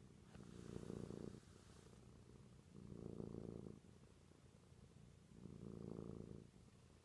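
A domestic cat purring as she drifts off to sleep. The faint purr swells and eases with each breath, about every two and a half seconds.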